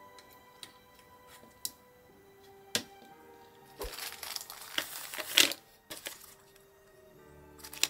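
Soft background music with three sharp clicks in the first three seconds as a CR2032 coin cell is pressed into its metal holder. About four seconds in comes some two seconds of loud crinkling and rustling from small plastic bags of laptop RAM sticks being handled.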